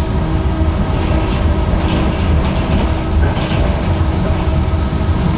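Tram running along the track: a steady low rumble of wheels on rails, with a constant hum and some brief clatter about one to three and a half seconds in.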